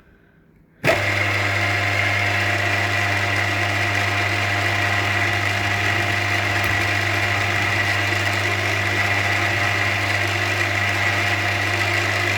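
Milling machine switched on about a second in, its spindle motor then running steadily with a low hum and a high whine.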